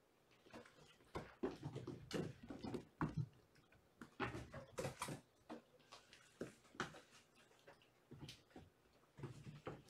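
Kittens playing on a hardwood floor: an irregular string of light thumps, scrabbling paws and blanket rustling, some knocks louder than others.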